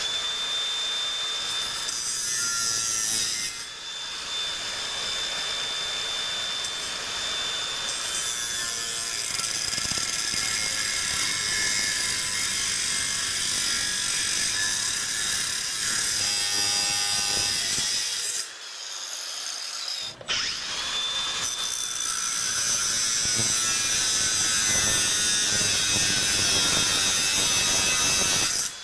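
Makita cordless angle grinder running and cutting through the steel wires of a coated wire closet shelf, a steady high whine over a harsh grinding noise. It stops for about two seconds past the middle, then runs and cuts again.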